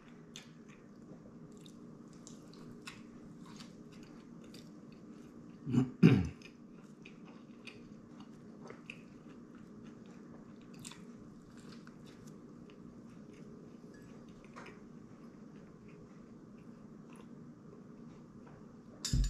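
A man chewing mouthfuls of a triple bacon cheeseburger, with many small soft mouth clicks and crunches. About six seconds in there is a short louder hum from him, and just before the end a brief louder sound as he drinks from a cup.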